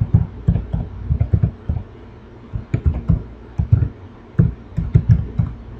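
Typing on a computer keyboard: a quick, uneven run of keystrokes, with a short pause about two seconds in.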